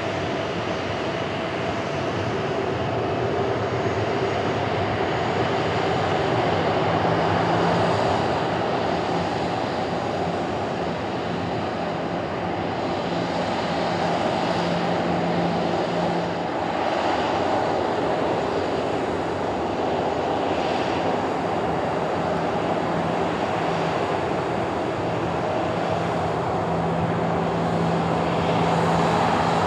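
Boeing 737-800's twin CFM56-7B turbofan engines running at taxi power as the airliner rolls past: a steady jet whine and rush, swelling slightly now and then, with a low hum that comes and goes.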